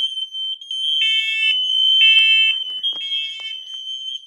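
Smoke alarms sounding together: a steady high-pitched tone with three half-second beeps, about a second apart, over it, in the temporal-three evacuation pattern.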